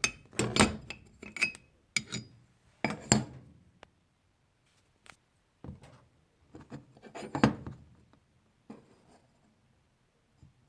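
Metal hand plane parts clinking and clattering as they are handled and turned over: a string of separate knocks and rattles, the busiest in the first few seconds, with another loud clatter about seven seconds in.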